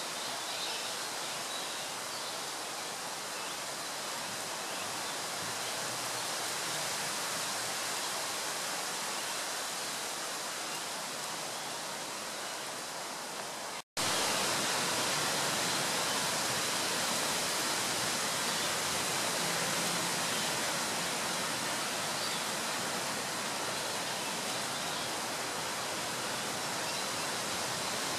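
Steady, even hiss of outdoor background noise, broken by a momentary dropout about halfway through.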